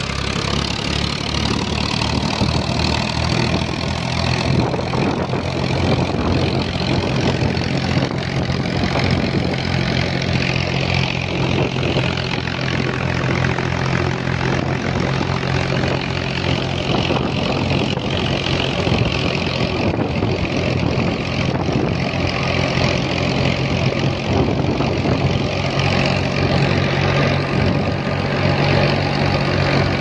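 Tractor-driven wheat thresher running steadily: the tractor engine turns the thresher's belt pulleys through a drive shaft, with a steady low engine hum under the rushing noise of the threshing machinery.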